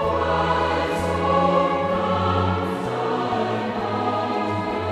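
Choral music: a choir singing sustained chords over a low bass that changes note about once a second.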